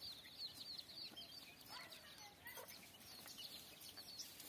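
Faint bird calls: a quick run of high, repeated chirps at the start, thinning to scattered chirps, with a few lower calls about two seconds in.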